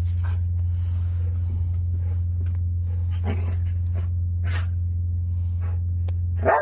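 Chocolate Labrador retriever letting out a few short whines and grumbles while flopping around on a bed, the loudest, a rising-and-falling whine, near the end. A steady low hum runs underneath and drops away sharply just before the end.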